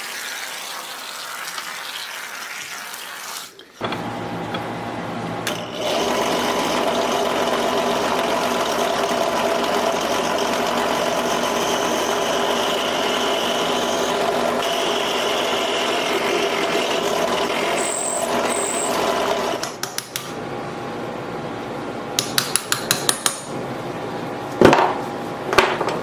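A short hiss of an aerosol can spraying penetrating oil, then a bench drill press running steadily for about sixteen seconds, drilling out the brass pins of an old chef's knife's wooden handle. Near the end, a run of quick sharp metallic taps and one louder knock as the knife is worked in a vise to free the handle.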